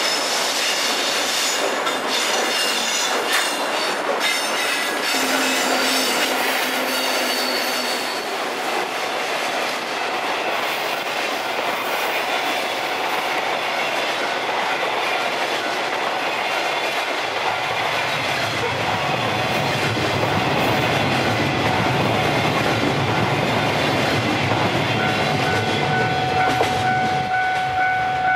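Freight trains passing close by. Wheels clatter over the rail joints, with high wheel squeal over the first several seconds. From about two-thirds of the way through, a deeper rumble builds, and a steady tone joins near the end.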